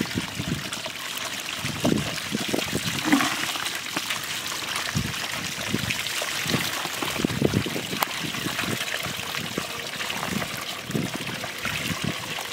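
Water splashing and trickling as a red plastic colander is dipped into shallow muddy water and lifted out full of small fish, draining through its holes into a plastic crate. A steady trickle of running water goes on underneath, with irregular splashes throughout.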